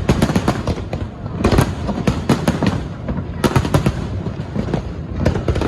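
Aerial fireworks going off in quick succession: an irregular, rapid string of sharp bangs and crackles in clusters over a continuous rumble.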